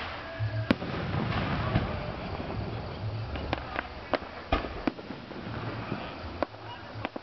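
Aerial fireworks shells bursting: about ten sharp bangs at uneven intervals, the loudest about a second in, over a steady background noise.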